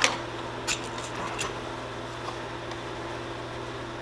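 Spark plug boot pulled off an Echo CS-590 Timberwolf chainsaw's spark plug with a sharp click, followed by a few lighter clicks of handling over the next second and a half. A steady low hum sits under it.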